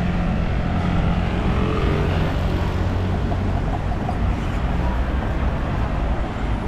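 City street traffic: cars driving through an intersection, with a steady low engine hum that fades out about two-thirds of the way through.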